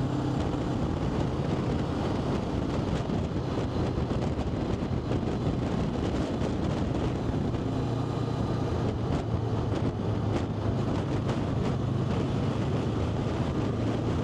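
Steady engine and road noise of a vehicle on the move, with a constant low drone.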